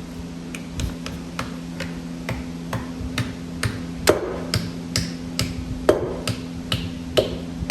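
Light, evenly paced hammer taps, about two a second, with a few harder strikes from about four seconds in, over a steady low hum.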